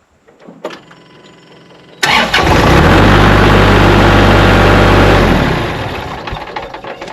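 Kubota L3301 tractor's three-cylinder diesel engine cranks and fires about two seconds in, runs loud and steady for about three seconds, then is shut off and winds down. It starts with the battery cable connector freshly cleaned and tightened after a no-start.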